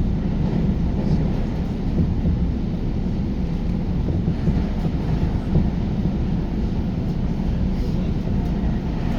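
JR Tokai New Rapid electric commuter train running, heard inside the car: a steady low rumble of wheels on rails.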